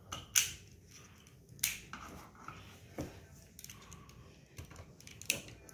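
Hard plastic parts of a 1987 G1 Transformers Doublecross toy clicking as they are moved by hand. There are a few sharp clicks, a second or more apart.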